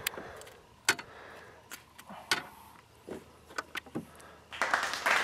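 Scattered light clicks and knocks from a fish and landing net being handled on a boat, then applause starts near the end.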